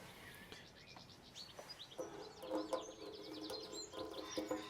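Small birds chirping and twittering in the background. From about two seconds in, a faint tuneful sound with held notes joins them.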